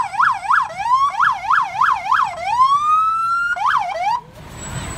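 Fire rescue truck's electronic siren yelping in quick up-and-down sweeps, about three a second, then one slow rising wail and a last quick sweep before it cuts off suddenly near the end.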